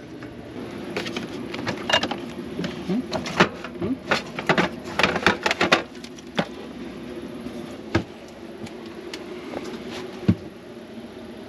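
Kitchen handling sounds: a spatula scraping and tapping a stainless pot, with dishes and utensils clinking in a quick run of knocks during the first half, then a few single clicks. A steady low hum runs underneath.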